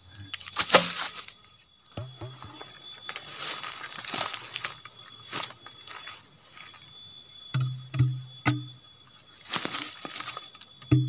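Hollow bamboo segments knocked and tapped against each other to shake red ants out of one segment into another, giving short hollow wooden knocks. Dry bamboo crackles and scrapes between the knocks, and several quick knocks come near the end.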